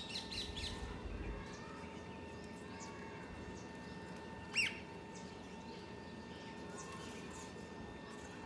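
Evening birdsong: parrots and small birds chirping now and then, with one sharp, louder rising call about four and a half seconds in.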